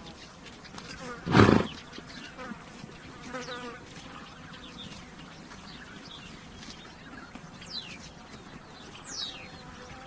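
A horse gives one short, loud snort about a second and a half in. Flies buzz around it and small birds chirp briefly later on.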